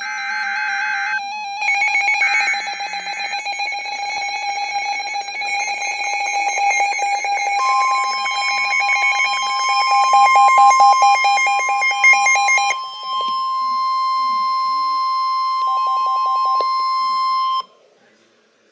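Emergency Alert System alert: two short buzzy data bursts at the start, then several steady alarm tones layered together with a fast pulsing beep, more tones joining partway through. The tones cut off abruptly near the end.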